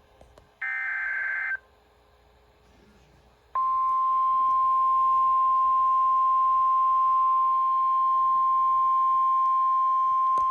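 Weather radio sounding an Emergency Alert System severe thunderstorm warning. About half a second in, a roughly one-second burst of the warbling SAME data header plays. Then, after a short gap, the loud, steady single-pitch warning alert tone starts about three and a half seconds in and holds.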